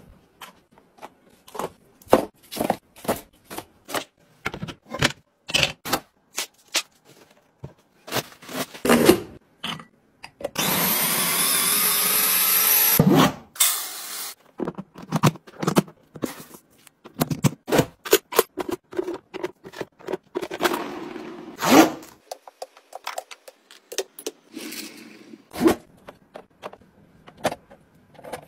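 A string of handling sounds from household items: short clicks, taps and scrapes of plastic and cardboard. Near the middle come a few seconds of steady rushing as rice is poured into a clear plastic storage bin.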